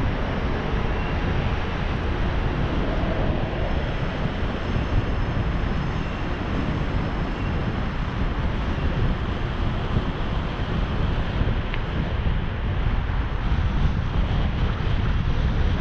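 Steady wind rush on the microphone of a camera riding along on a bicycle, heaviest in the low end, with no distinct events.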